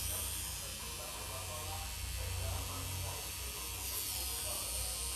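Electric tattoo machine buzzing steadily as it works ink into skin, with a low motor hum.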